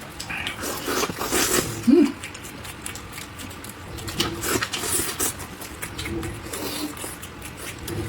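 Close-miked chewing and lip smacking, with many small irregular wet clicks.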